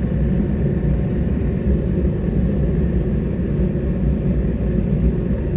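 Forge running: a steady low roar with no let-up.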